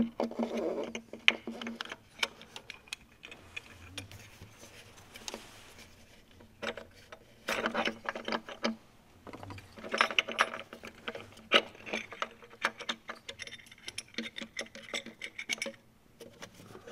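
Irregular metallic clicks and light taps, bunched into short clusters, as a fuel injector with its seal plate and copper washer is handled and fitted into a diesel engine by hand.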